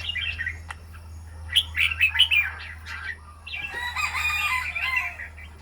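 Pet bird chirping and calling in short bouts of squeaky, pitch-bending notes, the loudest burst a couple of seconds in, over a steady low hum.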